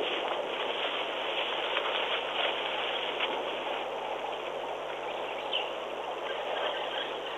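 Steady outdoor background noise, an even hiss, with a few brief faint high chirps.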